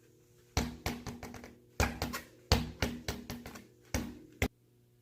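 A quick irregular series of sharp knocks and taps, about a dozen in four seconds, each with a short ring: parts of the mountain bike being handled while the newly tyred wheel is readied to go back on. A faint steady hum lies underneath.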